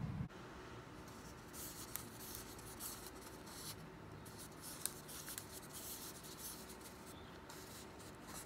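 Hands handling a paper cup and working at its plastic lid: faint rubbing and scraping, with one sharp click about five seconds in.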